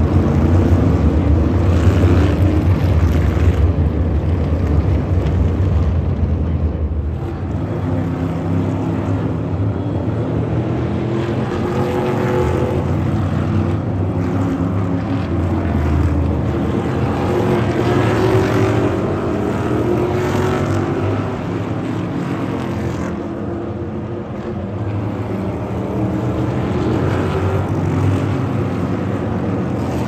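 A line of NASCAR Cup Series stock cars passing one after another at part throttle behind the pace car, their V8 engines droning, the pitch rising and falling as each car goes by. Loudest in the first few seconds.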